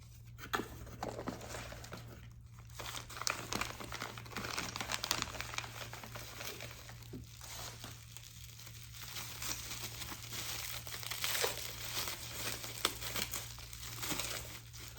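Packaging being handled and unwrapped by hand: irregular crinkling and rustling, with some tearing sounds.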